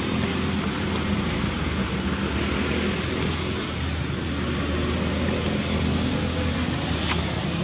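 Steady low motor hum with a hiss over it, and a single short click near the end.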